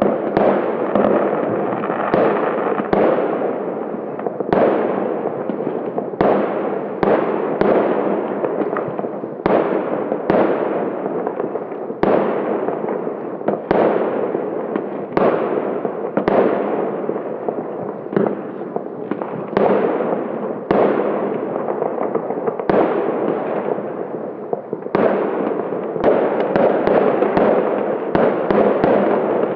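Fireworks going off: a steady run of sharp bangs, roughly one a second, each trailing away, over constant crackling. The bangs come closer together near the end.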